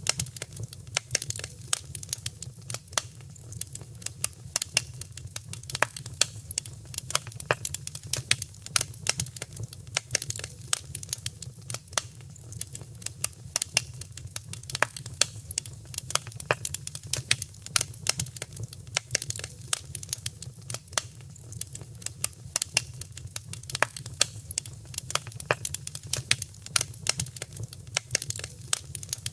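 Wood fire in a fireplace crackling: a dense, irregular run of sharp pops and snaps over a steady low rumble.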